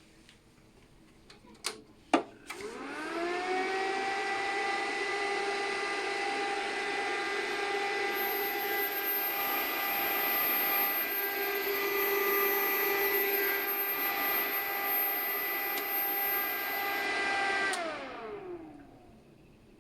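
Resanta SAI-250PN welding inverter switched on with a couple of clicks. Its cooling fan spins up with a rising whine and then runs steadily with air noise. A thin, very high-pitched whistle sounds over it for several seconds in the middle, the whistling the unit has developed after a year of use. Near the end it is switched off and the fan whine falls in pitch as it spins down.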